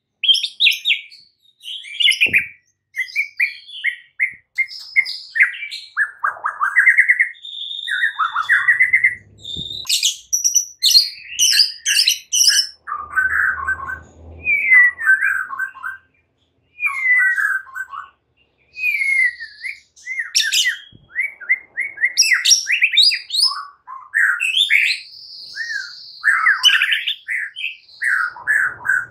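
White-rumped shama singing a varied run of loud whistles, rapid trills and chattering phrases, broken by a couple of short pauses about halfway through.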